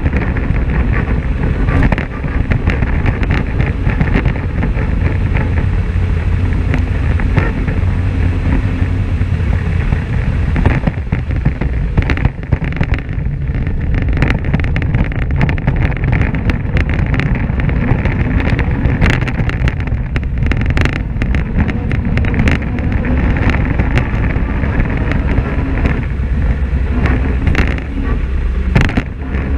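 Polaris RZR XP 1000 side-by-side driving on a gravel track: its parallel-twin engine running steadily under load, with tyre and gravel noise and frequent knocks and rattles over bumps.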